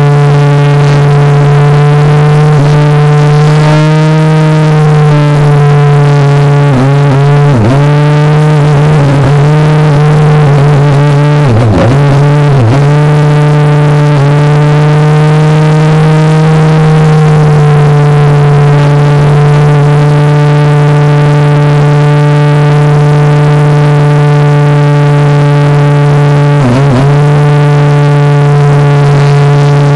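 RC airplane's electric motor and propeller whining loudly and steadily, heard from a phone taped to the airframe. A few brief dips in pitch, about a quarter of the way in, around the middle and near the end, are throttle eased and opened again during the flight.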